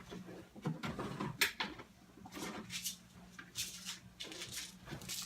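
Containers and bags of airsoft BBs being handled and set down: a string of irregular small knocks, clicks and rustles, the sharpest about a second and a half in.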